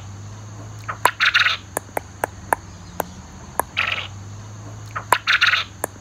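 Japanese quail calling three times, about two seconds apart, each a short rasping call, with sharp ticks scattered between the calls.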